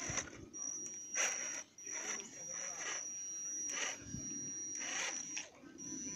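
Electric motor of a Defender 90 RC scale crawler (Gelande 2 chassis) whining at a steady high pitch as it creeps over rocks, cutting out briefly a few times. A few short sharp scrapes or knocks, from the tyres and chassis on stone, come between.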